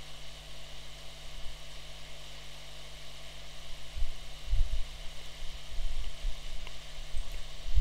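Steady background hum and hiss of the recording room, with a few dull low thumps about four seconds in and again near the end.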